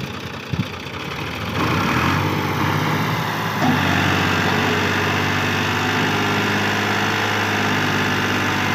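Fiat 480 tractor's three-cylinder diesel engine revving up about one and a half seconds in, then running hard and steady at full load as it strains to pull a loaded brick trolley stuck in soft ground.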